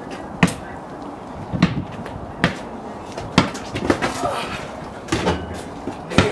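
A basketball bouncing and knocking against hard surfaces, sharp separate thumps roughly once a second at an uneven pace.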